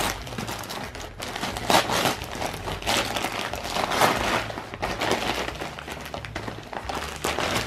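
Shiny Christmas wrapping paper crinkling and rustling in uneven bursts as a present is pulled open by hand.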